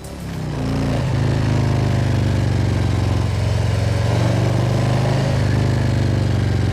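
Harley-Davidson Ultra Limited's V-twin engine running, coming up over the first second and then holding a steady, even pitch.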